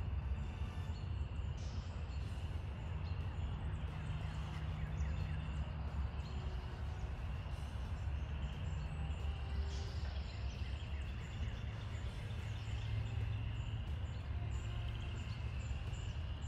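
Outdoor woodland ambience: a steady low rumble, with a faint chorus of high chirping calls repeating in the background.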